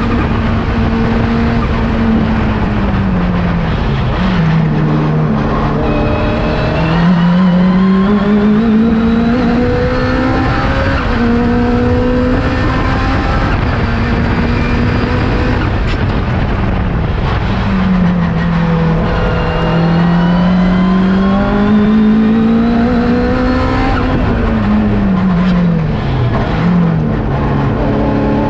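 Honda K20 four-cylinder engine in a K20-swapped Acura NSX time-attack car at full race pace. Its pitch climbs under acceleration, drops quickly at the gear changes and falls away into the corners, over and over through the lap.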